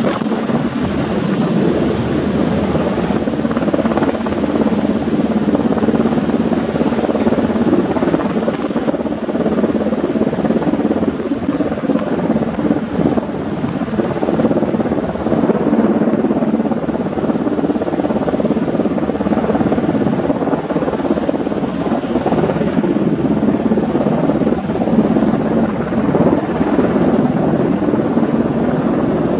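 Black Hawk helicopter hovering overhead while it holds a chairlift tower crossarm on slings, its steady rotor and turbine noise.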